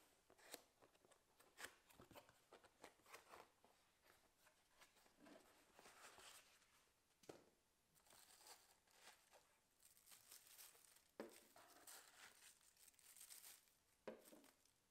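Cardboard packaging handled by hand: box flaps opened and inner cardboard pulled out, a run of scrapes, creaks and clicks, with crinkling of plastic wrapping. The handling is busiest in the second half.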